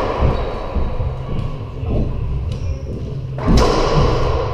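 A racquetball rally: the ball cracking off racquets and the court walls several times, each hit ringing in the enclosed court, the loudest about three and a half seconds in.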